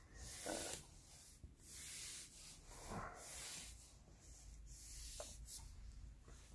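Brush pen tip dragged across paper in three long strokes, each a faint scratchy hiss, followed by softer rustling.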